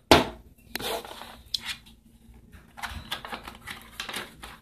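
A sharp knock, then a small child handling a clear plastic-wrapped packet: scattered crinkles, rustles and light taps as she tries to get it open.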